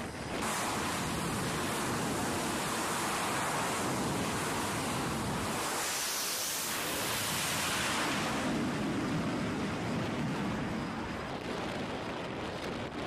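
Twin jet engines of an F/A-18 Super Hornet at full power during a catapult launch off a carrier deck, a dense rushing noise. It swells about half a second in and is harshest around six to eight seconds in, as the jet goes past.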